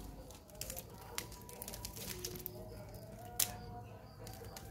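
Cats scampering and pawing at a cloth measuring tape on a tiled floor: a few sharp taps and clicks, the loudest about three and a half seconds in, in an otherwise quiet room.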